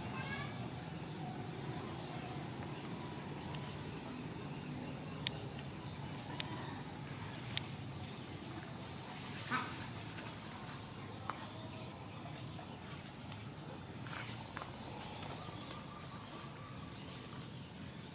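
Outdoor background noise with a bird repeating a short, high chirp about once a second, and a few sharp clicks in the middle.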